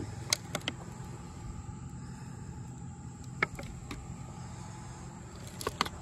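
A few short clicks and taps from a hand working at the metal gutter and drip-edge flashing at a roof edge: about three in the first second, one midway and a pair near the end. Under them run a steady low hum and a constant high-pitched tone.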